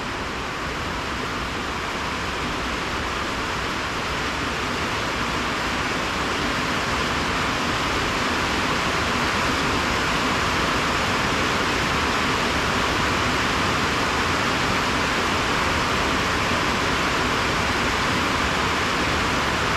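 Heavy rain falling on a metal roof, a steady hiss that slowly grows louder as the rain really comes down.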